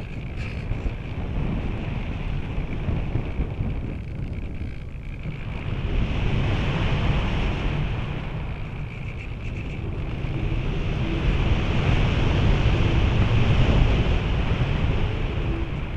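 Airflow rushing over the microphone of a camera mounted on a model glider's nose in flight, a steady wind rumble and hiss that swells twice, about six seconds in and again over the last few seconds.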